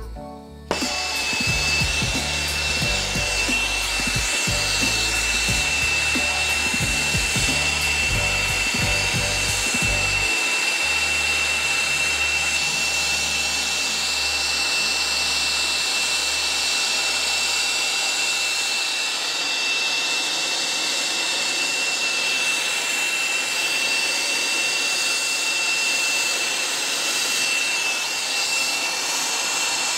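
Soldering torch burning steadily with a loud even hiss and a thin high whistle, heating a copper sweat joint while solder is fed in.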